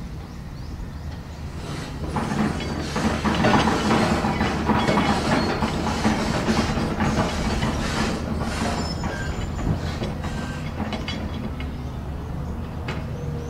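Komatsu tracked excavator's diesel engine running under load while clearing scrub, with frequent metal clanks and short squeals. It grows louder and busier about two seconds in, then eases off slightly.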